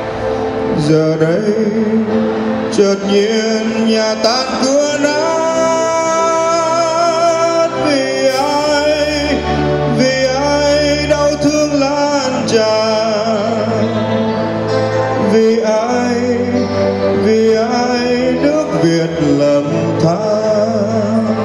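Male vocalist singing a Vietnamese song into a microphone, with long held notes, backed live by a band of keyboards, electric guitar and drums over a PA.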